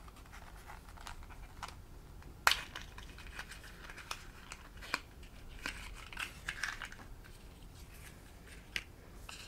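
Small cardboard boxes being opened and tiny plastic toy accessories handled: scattered light clicks and crinkling, with one sharper click about two and a half seconds in.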